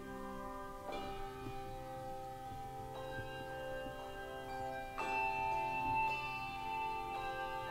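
Handbell choir ringing a slow piece: sustained ringing chords of handbells, with a new chord struck about every two seconds and the fullest one about five seconds in.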